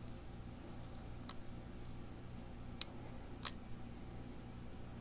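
Small sharp metallic clicks of lock-picking tools working the pins of a challenge lock: three clear clicks, the loudest two near the middle, among a few fainter ticks.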